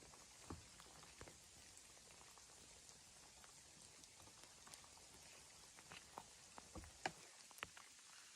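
Faint, scattered light ticks and taps over a soft steady hiss, with a few sharper ticks in the second half.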